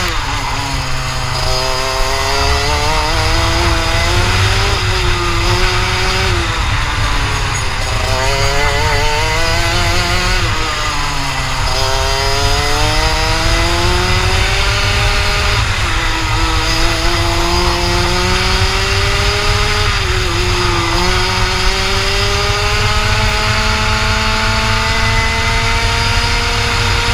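Rotax Max 125 cc two-stroke kart engine at racing speed, heard from the driver's helmet: its pitch climbs steadily down each straight with no gear-change steps and drops back for the corners, several times over. Heavy wind rumble on the microphone underneath.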